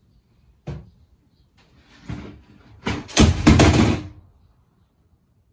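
A wooden cabinet door being handled by a toddler: a single knock, then a loud clatter of knocks and rattling that lasts about a second.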